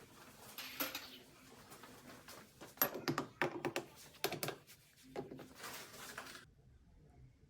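Irregular clicking and clattering of parts being handled and fitted back together while an oven range is reassembled; it cuts off suddenly near the end.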